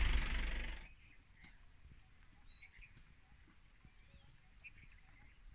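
Steady vehicle engine noise cuts off about a second in. It leaves a quiet outdoor background with a few faint bird chirps and one short rising whistle.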